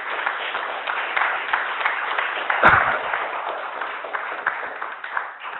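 Audience applauding, a dense patter of many hands clapping that tails off near the end. A single loud knock cuts through about two and a half seconds in.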